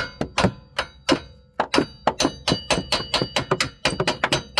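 Hammer striking the worn rear wheel hub to knock it loose from the steering knuckle. There are about twenty metallic blows, each with a short ring, at roughly five a second, coming a little faster in the second half.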